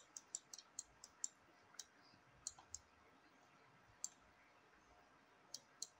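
Computer mouse buttons clicking, about a dozen short, sharp clicks, most of them in quick succession in the first second and a half and a few spaced out after that.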